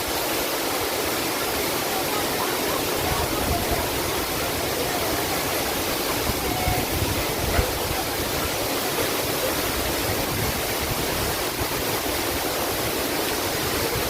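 Waterfall: steady, even rushing of falling water, with a brief low thump about halfway through.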